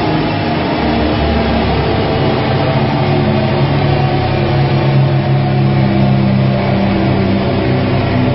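Seat Leon's stroked 2.0-litre four-cylinder engine running on a chassis dyno at a low, steady engine speed.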